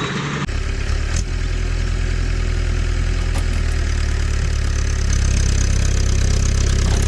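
A heavy vehicle engine idling with a deep, pulsing rumble. It starts about half a second in, with a single click soon after, and gets louder about five seconds in.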